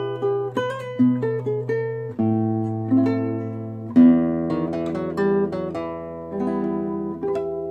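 Nylon-string classical guitar played fingerstyle: a slow melody picked over ringing bass notes, the bass changing every second or two. The notes die away near the end.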